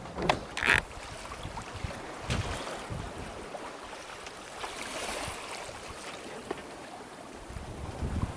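Water washing along a sailboat's hull under sail in light wind, with wind buffeting the microphone. A couple of brief knocks come near the start.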